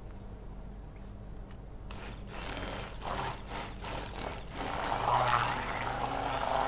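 Electric kitchen mixer blending chocolate compound and cream into a chocolate cream. It is quiet at first, then gives a quick series of rattling strokes about two seconds in, then runs steadily and louder from about five seconds in.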